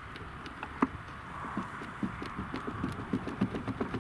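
Handling noise as the detachable wing panel of a large-scale model aircraft is pushed onto its wing joiner and seated against the fuselage: irregular light clicks and knocks, one sharper knock about a second in, and quicker clicking in the second half.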